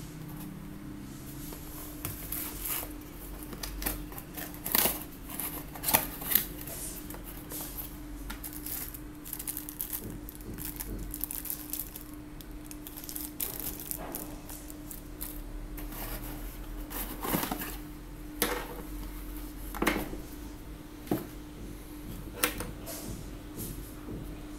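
Unpacking by hand: cardboard box and flaps rustling and scraping, a small plastic bag of adapters crinkling, and several sharp knocks and taps as parts are set down, over a steady hum.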